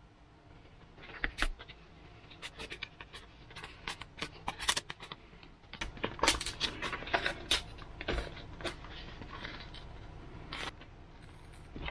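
Foam model-aircraft parts being handled and fitted together on a wooden workbench: an irregular run of sharp clicks, taps and rustles, busiest in the middle.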